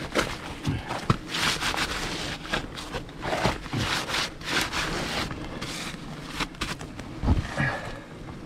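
Rustling and scraping of papery wasp-nest debris and crinkly foil-faced insulation being cleared by hand between attic rafters, in irregular bursts, with a few dull knocks.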